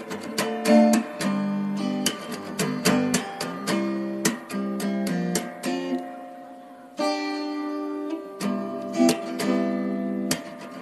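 Background music: an acoustic guitar playing plucked and strummed chords, easing off briefly past the middle before a new chord comes in.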